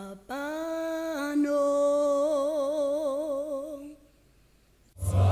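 A lone voice holds a long sung note with vibrato, steps up slightly about a second in, and fades out; after a short gap a full gospel choir comes in loudly near the end.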